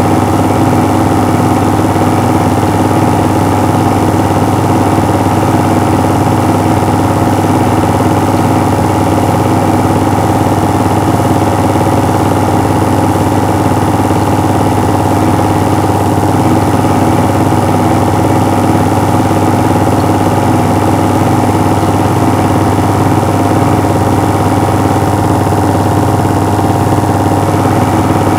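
Loud, steady motor hum with a strong low drone, unchanging throughout.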